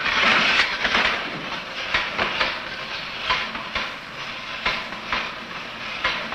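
Mechanical fright apparatus running, with a loud hissing rattle and irregular clattering clicks. It is built to frighten a baby monkey.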